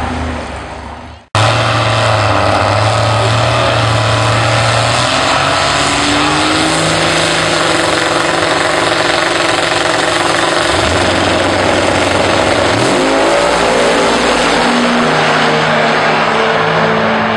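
Diesel engine of a Chevy Nova drag car running loud at the starting line, then climbing in pitch as the car launches and pulls away down the strip, the pitch stepping up and down. The sound breaks off sharply about a second in before the engine picks up again.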